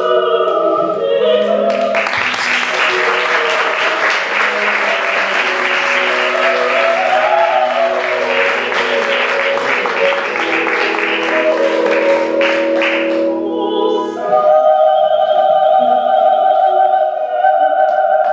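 Operatic music with choir singing in long held notes. From about two seconds in until about thirteen seconds, audience applause claps over it, then the music carries on alone.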